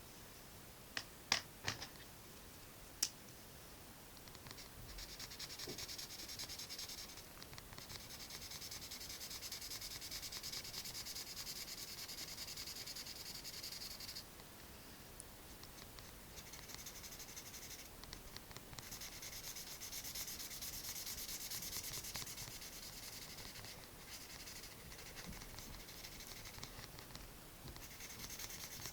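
A drawing tool rubbing steadily across paper, as in shading, in long stretches broken by short pauses. A few sharp taps come about one to three seconds in.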